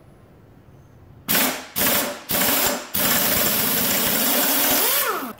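A handheld power driver turning the screw of a drum puller to draw the drum off a Clarke EZ8 floor sander's shaft: three short bursts, then a steady run of about two and a half seconds that cuts off near the end.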